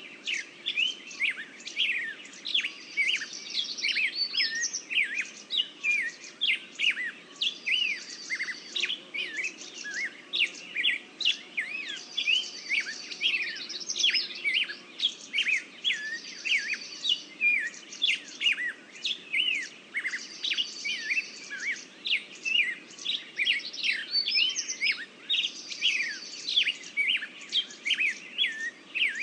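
Birds chirping continuously: many short, quick chirps, with a higher buzzy trill recurring every few seconds.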